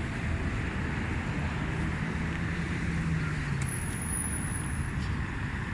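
Steady outdoor noise of distant road traffic with a low wind rumble. A faint engine hum rises out of it briefly in the middle.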